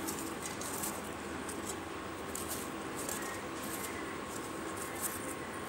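Steady background hiss with a faint, even hum, and no distinct knocks or clicks.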